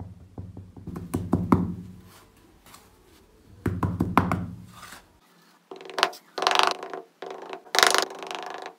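A small hand trowel digging and scraping through sand, in bursts of short knocks and gritty scrapes. In the last few seconds the scraping turns brighter and harsher, as the blade rubs against the hard base under the sand.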